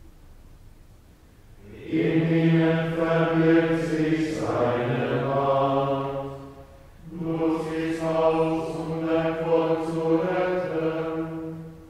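Men singing Gregorian chant, held mostly on one reciting tone. A short pause opens it, then come two chanted phrases with a breath between them, the second tailing off near the end.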